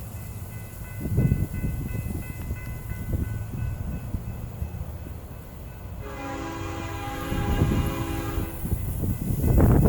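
Locomotive air horn sounding one long chord of several notes, starting about six seconds in and lasting about two and a half seconds, over a low, uneven rumble.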